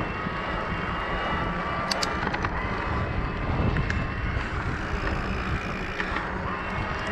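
Riding noise from a Bosch-driven e-bike at about 20 km/h on a paved road: wind buffeting the microphone over tyres rolling on asphalt. A faint steady whine runs under it, and a few light clicks come about two seconds in.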